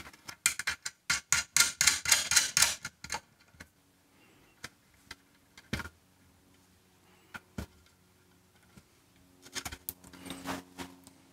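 Small metal clicks and rattles of ring terminals and nuts being fitted and tightened onto the posts of a terminal block: a quick run of clicks over the first three seconds, a few scattered ticks, then another cluster of clicks near the end.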